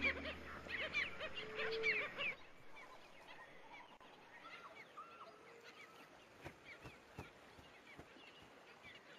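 A flock of black skimmers calling, many short calls close together for about two seconds. The sound then drops off suddenly to fainter, scattered calls.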